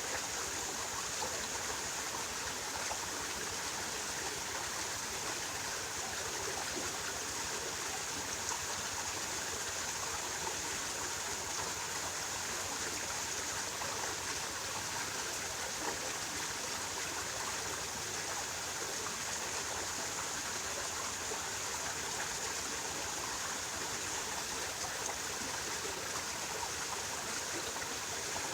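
Flowing water rushing steadily and unbroken.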